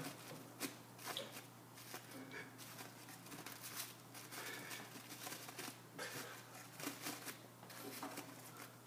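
Plastic crinkling and rustling in irregular bursts as a pet chipmunk works a wad of plastic in its mouth, pushing it into the entrance hole of its wooden nest box.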